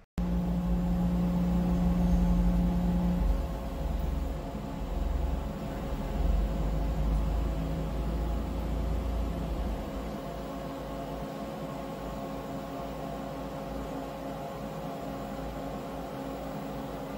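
Steady hum of machine-shop equipment, likely the CNC mill holding the vise, running with several steady tones over a low rumble. A lower tone and some of the rumble drop out about three seconds in.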